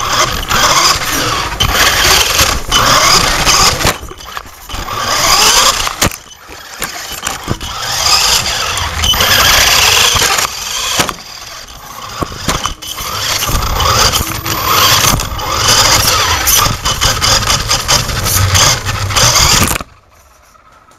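Traxxas E-Revo VXL RC truck's brushless electric motor whining up and down in repeated surges of throttle, with loud rushing noise, heard from a camera mounted on the truck. The sound cuts off sharply near the end.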